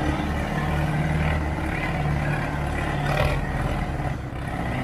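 Diesel tractor engines running steadily at high load with a low droning note, two tractors pulling against each other in a tug-of-war. There is a brief burst of noise about three seconds in.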